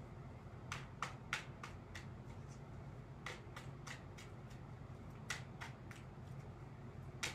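A deck of tarot cards being shuffled by hand, cards passed from one hand to the other in an overhand shuffle, making a dozen or so soft, irregular clicks and slaps.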